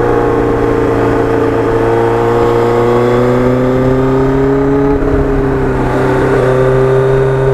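Kawasaki Ninja GPX750R's inline-four engine running through an aftermarket Norton muffler under way on the road. The engine holds a steady note, its pitch creeping up slowly, with a slight drop about five seconds in.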